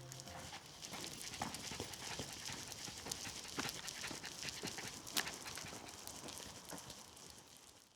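A shiba inu's steps on a walk: many irregular clicks of claws and paws over a steady hiss, fading out near the end.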